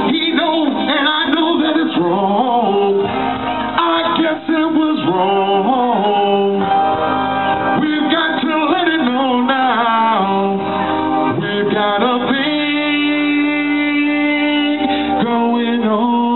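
A man singing into a microphone over backing music, holding one long note for a few seconds near the end.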